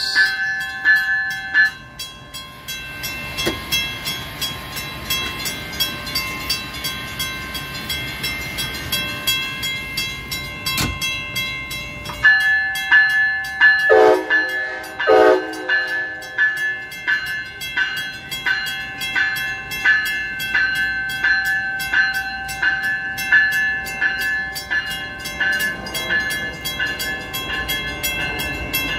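A grade-crossing warning bell rings in rapid, even strikes as a Brightline passenger train with Siemens Charger SCB-40 locomotives passes slowly. About halfway through, the train horn sounds two short blasts.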